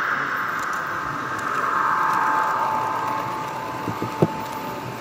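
Model train running past close by on the layout's track: the whirr of its motor and wheels rolling on the rails, with a steady whine coming in about halfway and a single sharp click near the end.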